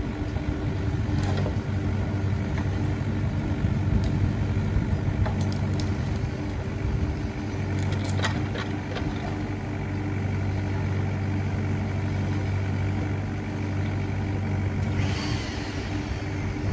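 Kubota mini excavator's diesel engine running steadily while the arm works, with a few short knocks and clicks.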